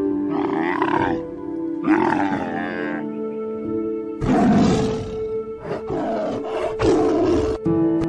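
Camels calling twice, then a tiger roaring three times from about four seconds in, the first roar the loudest, over steady background music.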